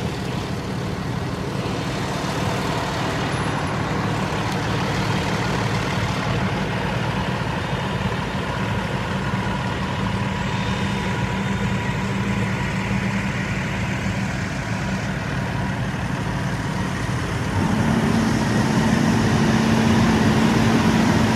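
Fire engine's diesel engine running steadily at idle, a constant drone. It becomes louder and a little higher in pitch for the last few seconds.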